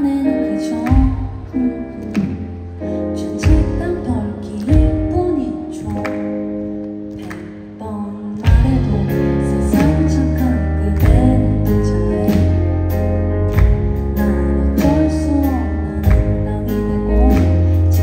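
A woman singing live into a microphone with a band behind her: keyboard, drums and bass. The accompaniment fills out and gets louder about eight and a half seconds in.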